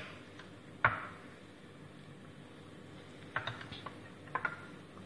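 Metal spoon clinking against a stainless steel bowl while cream is spooned into a chicken marinade: one sharp clink about a second in, then two quick runs of lighter clinks near the end.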